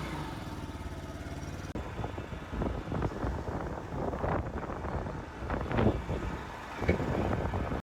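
Vehicle engine running steadily while driving, its even pulsing mixed with knocks and rattles; the sound cuts off abruptly near the end.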